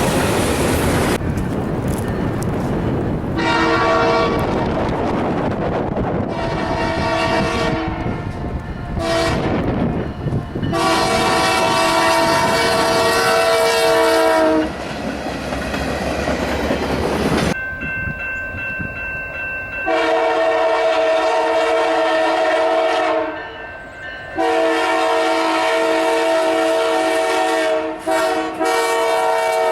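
Train horns sounding a run of blasts, some long and some short, each several notes at once, over the rumble and clatter of passing trains. The clips cut from one to the next, with a short thin high tone in the middle.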